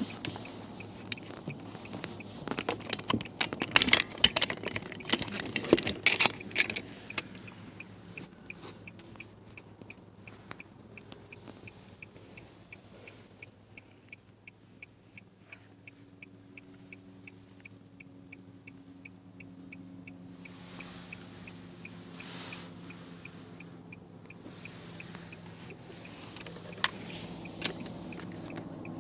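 Clicks, knocks and rustling of handling inside a car's cabin, with a faint steady ticking of about two ticks a second underneath. A low steady hum with several tones comes in about halfway through, and the handling clicks return near the end.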